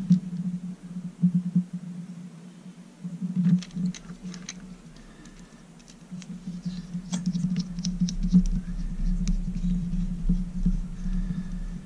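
Small clicks and scratches of a precision screwdriver turning a tiny mounting screw into a micro quad's flight controller mount, with fingers handling the plastic frame. The clicks come in bunches, from a few seconds in and again in the latter half, over a low steady hum.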